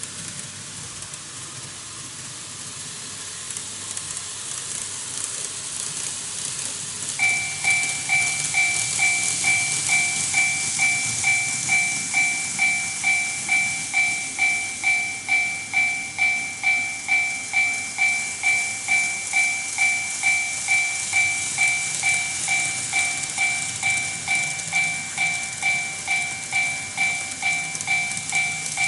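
Electronic warning bell of a TOMIX model automatic level crossing: a two-tone ding that starts about seven seconds in and repeats about twice a second. Under it is the steady rattle and hiss of N-gauge model trains rolling on the track, which grows louder over the first seconds.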